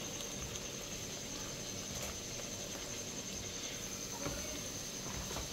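Flour-and-jaggery tikkis frying in hot oil in a pan, a steady low sizzle, with a couple of faint clicks.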